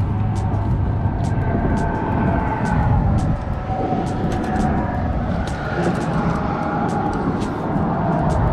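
Road traffic passing close by, a steady rumble with drifting tyre and engine tones, with light irregular ticks over it.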